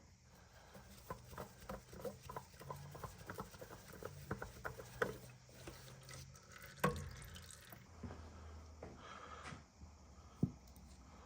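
Hydraulic oil dripping and trickling from an opened hydraulic filter housing, faint, with scattered small ticks and a sharper knock about seven seconds in and another near the end.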